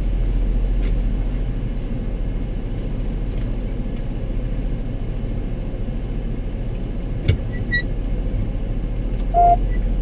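Steady low hum of the Toyota Sienna van idling, heard inside the cabin. There is a sharp click about seven seconds in and a short beep near the end.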